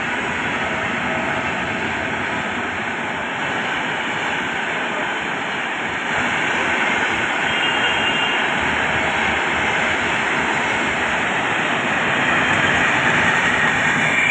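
Rajdhani Express train running through at full speed: a continuous rushing noise of wheels on rail and air, growing louder about six seconds in and again near the end.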